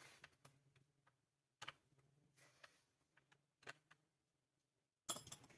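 Faint, scattered clicks and taps of parts being handled and fitted on a Stihl FS400 brush cutter, with a louder cluster of clicks about five seconds in.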